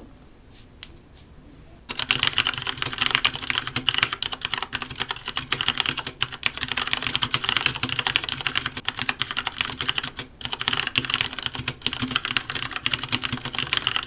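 Continuous fast typing on an Ajazz Zinc 65% mechanical keyboard with Cherry MX Brown switches, starting about two seconds in after a few lone key clicks. The untuned stock stabilizers rattle, a sign that they need lubing.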